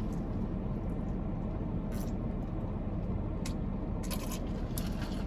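Steady low rumble of car cabin noise, as from an idling engine or a parked car's running air system, with a few faint clicks about two, three and a half and four seconds in.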